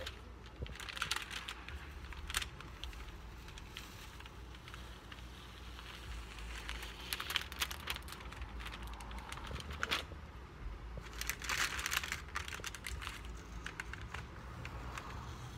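Masking paper and painter's tape being peeled off a freshly painted surfboard, crinkling and tearing in irregular bursts, with a steady low hum underneath.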